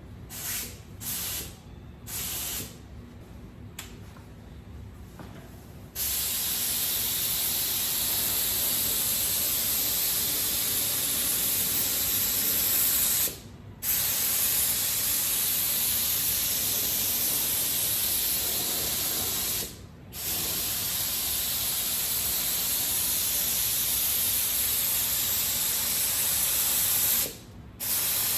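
Aeropro spray gun with a 2.5 tip, run at about 30 PSI, spraying polyester primer. A few short bursts of hiss in the first seconds, then a steady hiss of air and atomised primer that breaks off three times for a moment as the trigger is let go between passes.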